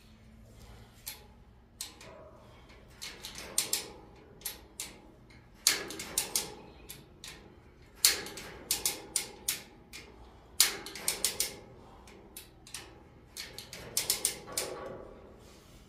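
Hand-operated hoist being worked overhead in short spells: quick runs of sharp metallic ratchet clicks, several to a run, with pauses between.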